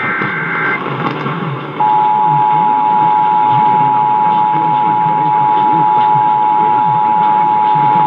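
The last burst of an Emergency Alert System SAME header ends in the first second: a short, raspy digital warble. About two seconds in, the EAS two-tone attention signal (853 and 960 Hz sounding together) starts and holds steady. It is heard over AM radio, with a noisy background underneath.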